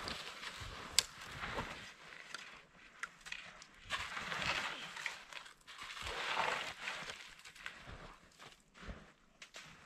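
Footsteps crunching and shuffling through deep snow in irregular bursts, with a sharp click about a second in.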